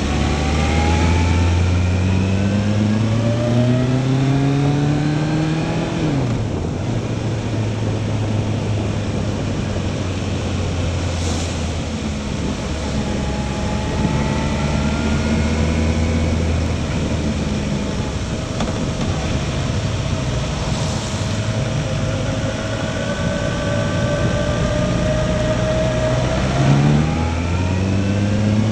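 Motorcycle engine pulling uphill, its pitch rising and then dropping at a gear change about six seconds in, running steadily after that, with another drop and rise near the end, over a steady rush of wind and wet road noise.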